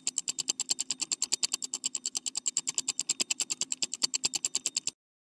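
Fast, evenly paced typing on a computer keyboard, about ten keystrokes a second over a faint low hum. The typing cuts off suddenly near the end.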